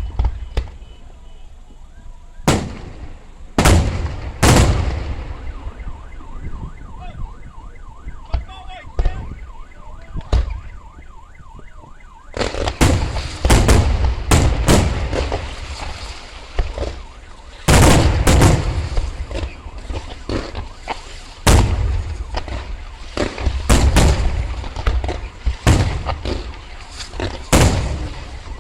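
Fireworks show: single aerial shell bursts bang at irregular intervals, then from about twelve seconds in a dense barrage of bangs and crackle. A faint wavering, warbling tone sounds during the quieter stretch before the barrage.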